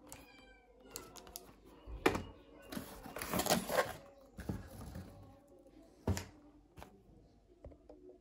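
Product boxes handled in a cardboard shipping box: a sharp knock about two seconds in, a rustling scrape of cardboard and plastic wrap for about a second, and another knock near six seconds as a box is set on the wooden desk.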